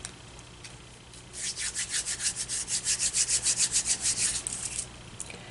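Brisk back-and-forth rubbing, about eight or nine strokes a second, starting a little over a second in and stopping shortly before the end: hands wiping excess white glue off the fingers.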